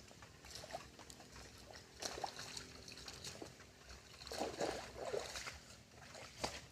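Water sloshing and trickling, with irregular small splashes, a cluster of them about two-thirds of the way in.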